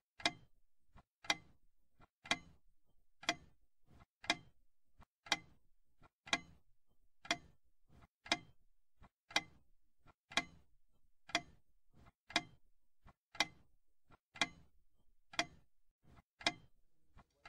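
Clock ticking steadily, a sharp tick about once a second, each paired with a much fainter tock.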